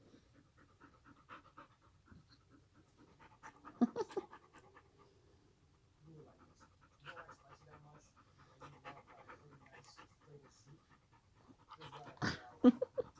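Husky dog panting rhythmically after play, with a few louder sharp sounds about four seconds in and again near the end.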